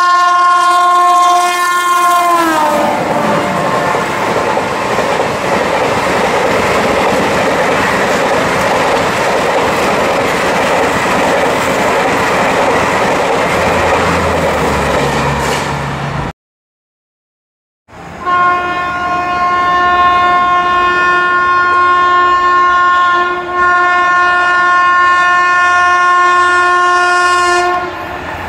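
Electric locomotive's horn sounding as the train runs through at speed, its pitch dropping as the locomotive passes about two and a half seconds in. The horn gives way to the steady rushing noise of the passenger coaches going by. After an abrupt cut, the next approaching locomotive sounds a long, steady horn for about ten seconds, with a brief dip midway.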